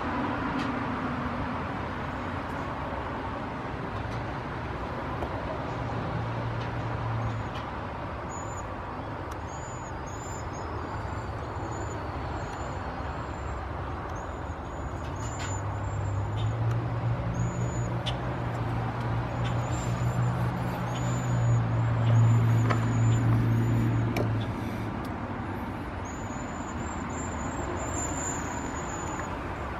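Cedar waxwings giving many short, thin, very high-pitched calls in quick series from about eight seconds in. Underneath is a steady low drone of road traffic, which swells for several seconds in the middle as a vehicle passes and is the loudest sound.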